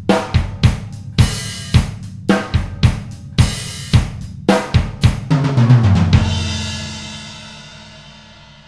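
Acoustic drum kit on its own, playing a steady beat of kick, snare and cymbals. About five seconds in comes a fill down the toms, falling in pitch, then a final crash-and-kick hit about six seconds in that rings out and slowly fades: the song's closing hit.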